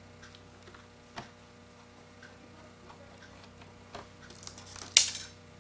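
Small scattered clicks and ticks of a screwdriver and tiny screws as the screws holding a laptop's screen panel are taken out, with one sharper click near the end.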